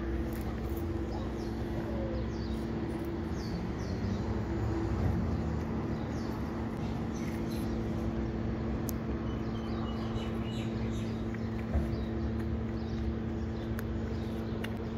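Small birds chirping repeatedly over a steady low hum, with a few sharp clicks.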